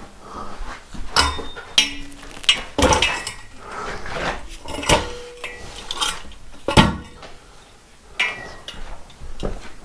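Irregular metallic clanks and knocks, about ten over the stretch, several with a short ringing tone, the loudest about seven seconds in: tools and metal pieces being handled and struck during building work.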